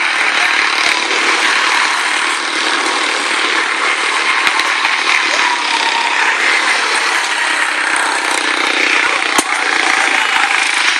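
Quarter midget race cars' small single-cylinder engines buzzing steadily as they lap a short oval track.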